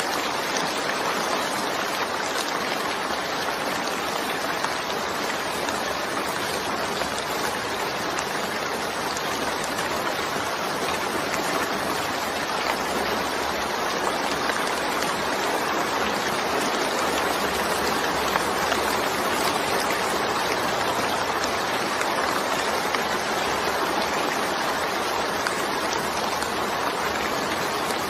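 Steady rainfall: an even, unbroken hiss of many falling drops.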